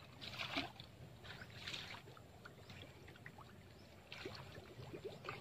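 Faint outdoor ambience: a soft low rumble and hiss with a few passing swells of rustling and some brief faint chirps.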